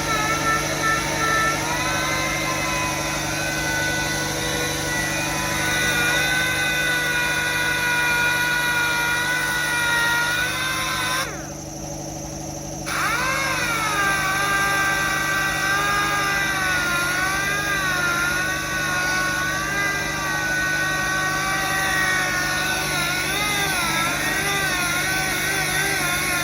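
Power sander running on car bodywork, its pitch wavering as it is pressed and moved. It stops about eleven seconds in, then spins back up about a second and a half later and runs on.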